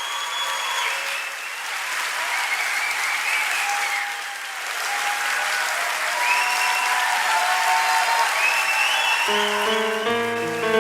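Audience applauding, with high gliding musical tones sounding over the clapping. About nine seconds in, instrumental music with steady chords comes in.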